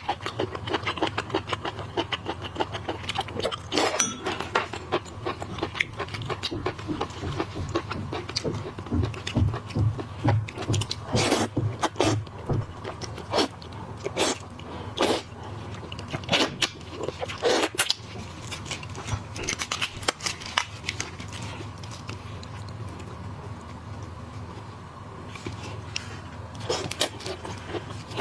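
Close-miked eating of boiled seafood: wet chewing and smacking with frequent irregular clicks and crackles, quieter for a few seconds after about twenty seconds in.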